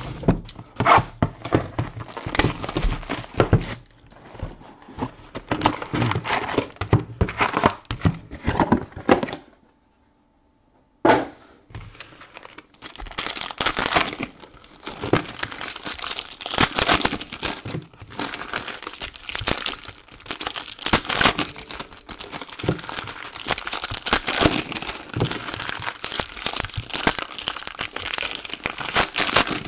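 Trading card box packaging and pack wrappers being torn open and crinkled by hand. Dense crinkling, then a second or so of near silence about a third of the way through that ends in a sharp click, then steady crinkling again.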